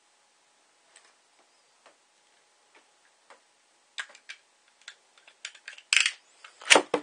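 Light plastic clicks from a Beyblade and its launcher being handled: sparse at first, then quick and irregular from about four seconds in. A loud rip and clatter near the end as a Beyblade is launched into the plastic stadium.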